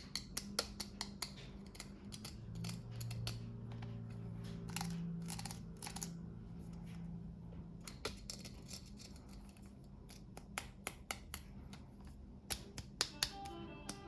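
Close-up handling of small plastic toy packaging: a run of sharp clicks and crackles, thickest in the first couple of seconds and again near the end.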